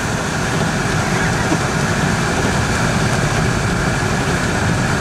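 Steady car cabin noise while driving on a snowy road: engine and tyre rumble with a hiss over it.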